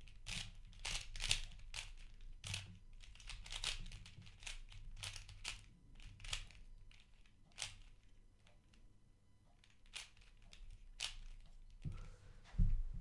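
Plastic clicking and clacking of a Gans III 3x3 speedcube turned fast by hand, in quick runs of turns that thin out in the second half. The cube is unlubricated and untensioned, straight out of the box.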